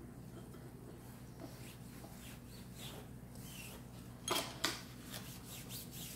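A cloth rag rubbing over an aluminum tube as gloved hands wipe it down, soft and scratchy. About four seconds in there are two sharp knocks a moment apart, the loudest sounds, as the metal part is handled.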